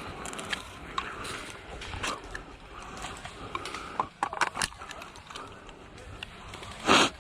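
Rustling and scattered clicks and knocks, as of a player and their gear moving through brush, with one louder short scuffing noise near the end.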